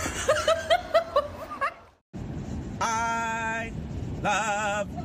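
A dog's quick, high yips, several in a row, then after a brief silence a long held note and a wavering one from a husky and a man howling and singing together.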